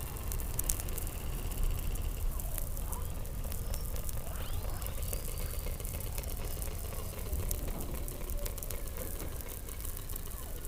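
Underwater sound below the Antarctic ice: a steady low rumble with scattered sharp clicks and faint calls that glide up and down in pitch.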